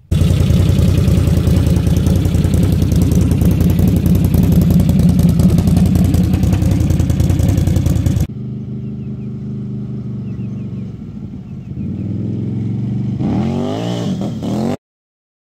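2009 Can-Am Renegade 800R ATV's V-twin engine running steadily, loud and close up, for about eight seconds. Then, heard from farther off as the ATV is ridden, the engine note rises and falls as it accelerates near the end, before the sound cuts off suddenly.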